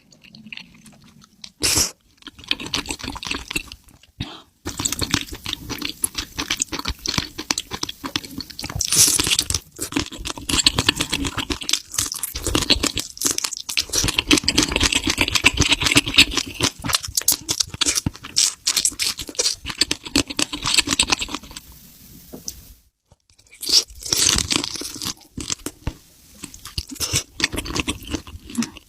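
Close-miked crunching and chewing of food: dense, crackly bites and chews, pausing briefly twice.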